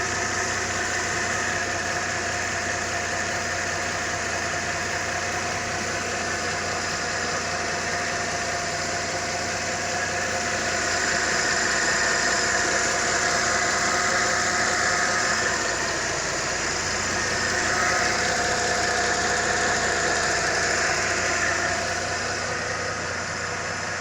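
Mercedes-Benz M272 V6 engine idling steadily with an even, fast mechanical ticking. This is the engine after an overhaul that relined the cylinders for scuffed bores.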